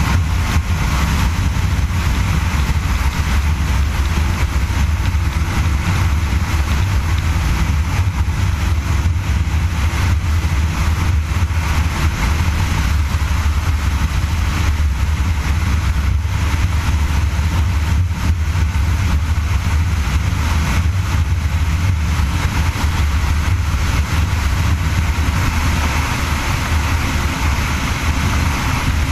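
Snowmobile running steadily at speed, a continuous loud engine and travel noise heaviest in the low rumble.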